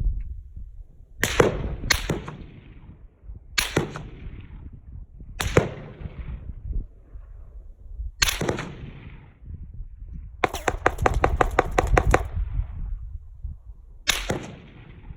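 Gunfire: a sharp crack for each shot, each followed by a fading tail; five spaced single shots, then a rapid string of about a dozen shots in under two seconds, then one more single shot near the end.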